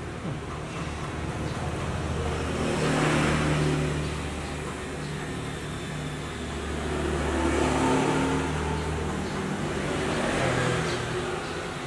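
Road traffic: engine hum with vehicles passing, swelling and fading about three times.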